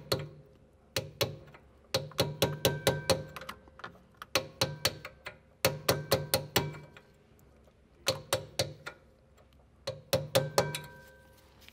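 Hammer tapping a steel punch to drive a brake caliper guide pin through the pads until it sits flush with the back of the caliper. The taps come in repeated bursts of several quick strikes, at times about five a second, each hit with a short metallic ring.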